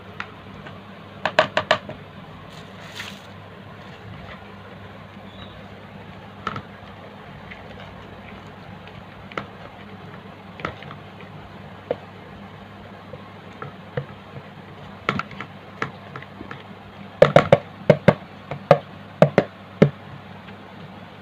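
Sharp clacks and taps of plastic kitchenware: a plastic spatula knocking against a plastic mixing bowl while a thick bait paste is stirred, then a quick run of louder knocks near the end as a bowl is tapped to shake grated shreds out. A steady low hum sits underneath.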